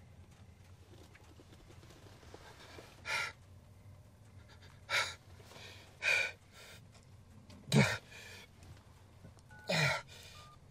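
A man gasping for breath, five ragged gasps a second or two apart, the last two with a low groan: hurt and shaken after a car crash. Near the end, short beeps from a BlackBerry keypad as he starts to dial.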